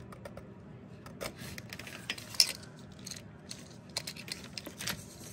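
Hard plastic clicks and small scrapes of an electrical connector being worked loose and unplugged from a MAP sensor on an intake manifold, with the sharpest click about two and a half seconds in.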